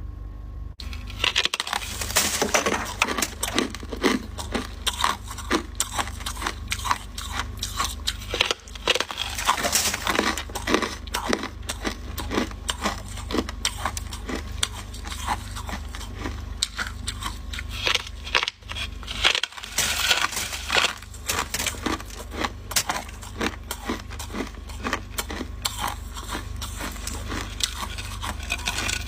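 Freezer frost being scraped off, a quick run of rough scraping and crunching strokes, over a steady low hum.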